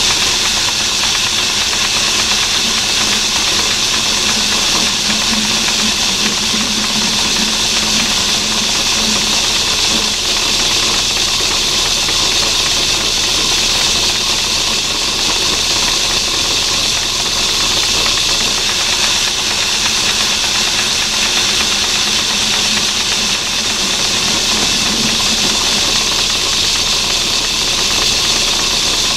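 Metalworking lathe running steadily while a turning tool faces a spinning aluminium workpiece, a continuous hiss of the cut over the hum of the machine.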